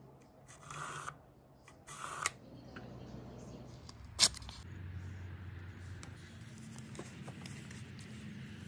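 Handling noises of blue painter's tape being pulled and pressed around a polymer rifle magazine: two short rasping pulls and a click, then a sharp loud click about four seconds in, followed by faint rubbing over a low steady hum.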